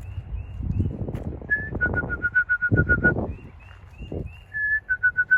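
A person whistling a pigeon call to bring racing pigeons down into the loft: twice, a held note followed by a quick run of short, even pips, about eight a second.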